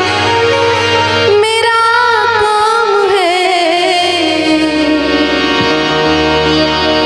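A woman sings a Hindi devotional bhajan live, accompanied by harmonium and a band. The instruments play alone at first, then about a second in her voice enters with a long, ornamented phrase that slowly sinks in pitch.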